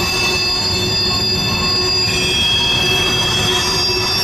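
Freight train of loaded BNSF covered hopper cars rolling steadily across a bridge: a continuous low rumble of wheels on rail, with several steady high-pitched wheel squeals over it that change pitch about halfway through.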